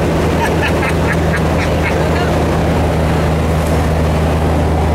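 Kenworth truck's diesel engine droning steadily inside the cab. About half a second in, a short burst of rhythmic laughter lasts under two seconds.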